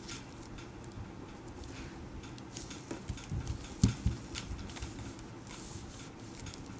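Playing-card boxes being handled and set down on a cloth-covered table: faint scattered taps and rustles, with one louder knock a little under four seconds in.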